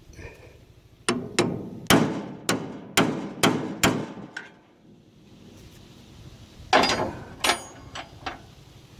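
Hammer striking a bearing's lock collar on a haybine crimper roll shaft, tapping it round to lock it tight: about seven sharp metallic blows, a pause, then four more.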